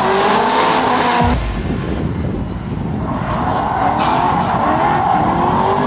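Drift car engine revving hard, its pitch climbing and falling, with tyre screech over roughly the first second. The engine note then eases off and builds back up from about three seconds in.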